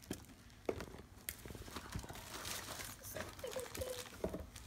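Faint, scattered clicks and rustles of small objects being handled.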